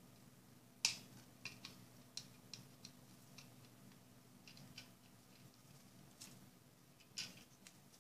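Scattered small clicks and ticks of a screwdriver turning screws into a small plastic robot case, with the plastic parts knocking in the hand. The loudest click comes about a second in, and another cluster near the end.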